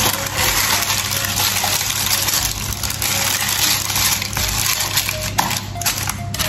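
Baking paper rustling and crinkling as hands press and smooth it into a metal tube cake pan.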